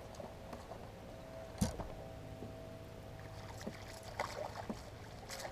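Spinning reel being cranked as a small fish is reeled in toward a boat, with a steady faint hum under it. One sharp click about a second and a half in, light ticks later, and small splashes near the end as the fish nears the surface.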